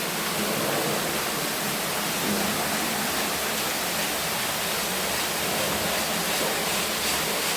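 Steady rushing of flowing water in a stream.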